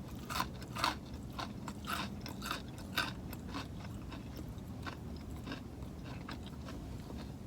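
A person chewing food close to the microphone: a run of irregular crunchy mouth clicks, a few each second, over a low steady hum.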